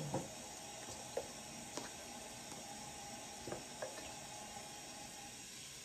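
Bathroom sink tap running hot water faintly, with a few light clicks of handling; the flow stops shortly before the end.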